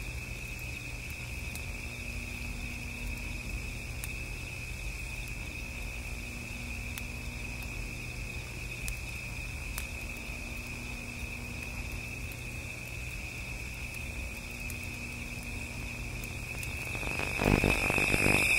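A steady, high cricket chorus trilling continuously over a low hum. About a second and a half before the end it gives way to a loud burst of distorted VHS tape-glitch noise.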